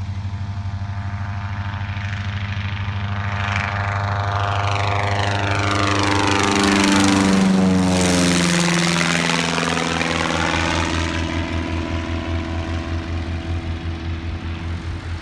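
Lake LA-4-200 Buccaneer amphibian's pusher propeller and engine at takeoff power, growing louder as it approaches. It passes overhead about halfway through with a clear drop in pitch, then fades as it climbs away.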